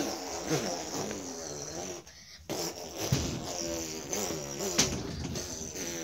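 A child's voice making wordless vocal noises, with a short pause about two seconds in.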